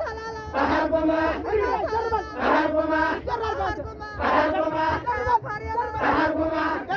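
A crowd of men singing a traditional Raya dance chant in unison, loud voiced phrases swelling about every two seconds.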